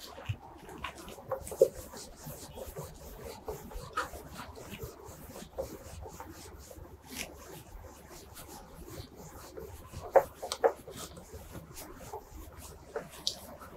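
Whiteboard eraser rubbing across a whiteboard in irregular wiping strokes, clearing marker writing, with a few sharp knocks on the board.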